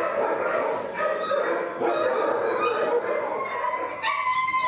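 Many dogs barking, yelping and whimpering at once, a dense overlapping chorus of calls.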